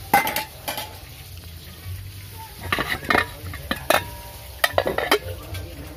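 Metal ladle, aluminium cooking pot and its lid clinking and knocking together in a series of short, irregularly spaced clinks, with a cluster of them about three seconds in.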